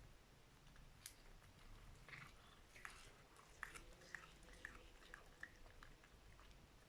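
Faint crunching and clicking of a pet chewing its food, with a run of sharp ticks about two a second in the middle.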